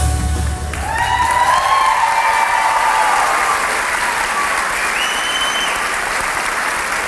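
The song's final low note dies away in the first moment, then a theatre audience applauds and cheers, with high whoops rising out of the clapping.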